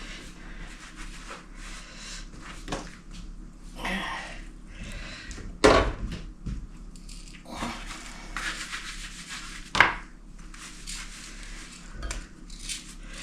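A dishcloth rubbing and wiping salt and pepper shakers, with two sharp knocks about six and ten seconds in.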